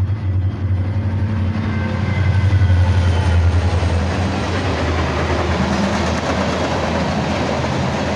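CSX freight train passing close by. The diesel locomotive's low engine rumble is loudest about two to three seconds in, then gives way to the steady rolling noise of the cars' wheels on the rails.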